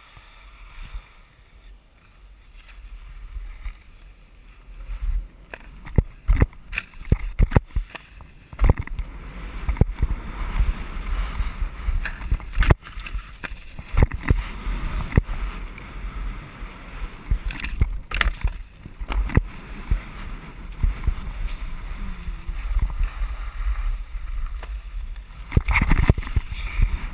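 Skis scraping and chattering over snow during a downhill run, with wind buffeting the GoPro's microphone as a low rumble and scattered sharp knocks. It is quieter at first and grows louder and busier about a third of the way in.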